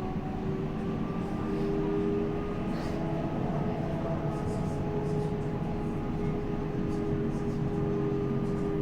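Electric tram car running at about 59 km/h: a steady whine from the traction motors, several tones that creep up slightly and then hold, over a continuous rumble of wheels on rails.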